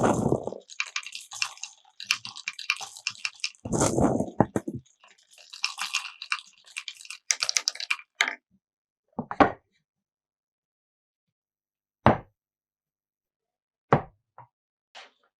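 Glass marbles rolling and clattering through a wooden Cuboro marble run: a dense stream of clicks with short rolling rumbles for about the first half, then single clacks a second or two apart.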